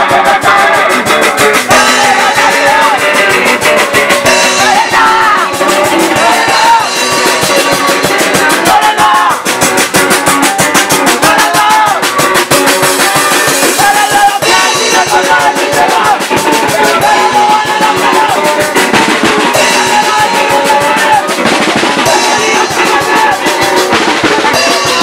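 Punk rock band playing live and loud: a drum kit struck fast, with crashing cymbals, over electric guitars.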